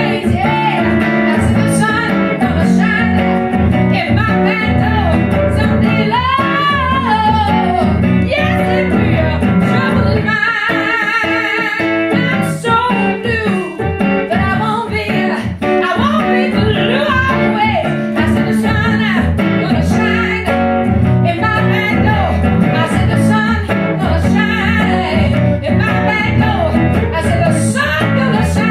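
A woman singing a blues song to her own guitar, the guitar strummed and picked under a wavering vocal line.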